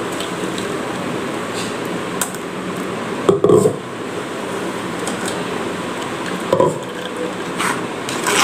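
Thick ground horse gram mixture poured from a steel vessel into a stainless steel mesh strainer, then stirred and pressed through the mesh with a spoon, over a steady hiss. Two louder knocks of utensil on steel, about three seconds in and again past six seconds.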